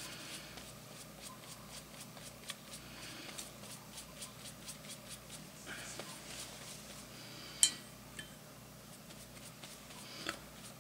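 Quiet watercolour painting: a paintbrush brushing and tapping on a journal page, with light clicks throughout. One sharper click comes about three quarters of the way through, as the brush goes to the glass water jar.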